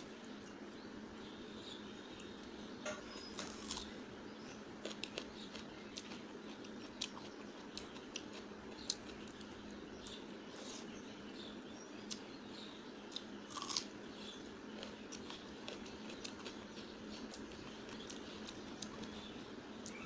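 Close-up eating sounds of panta bhat, rice soaked in water: fingers squishing the wet rice in a steel bowl, and chewing and smacking, with scattered short clicks over a steady low background noise.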